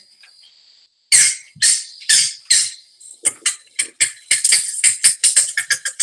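Green heron calls played from a bird-song recording: four loud, harsh notes about half a second apart, then a fast series of shorter notes that speeds up toward the end.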